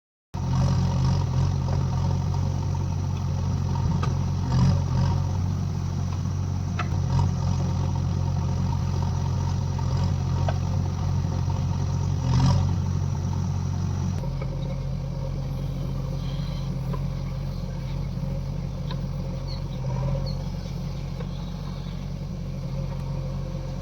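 JCB 3DX backhoe loader's diesel engine running steadily under working load, with a few sharp knocks and clatter. About fourteen seconds in, the engine note drops and settles lower.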